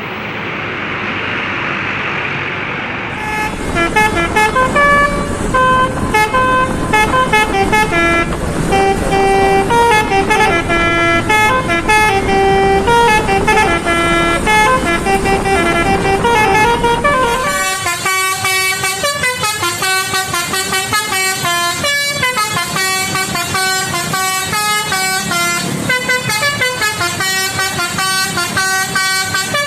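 Bus engine noise, then from about three seconds in a bus's 'telolet basuri' musical horn plays a quick melody of stepping notes. About halfway through, a different horn takes over with a faster, higher, repeating tune.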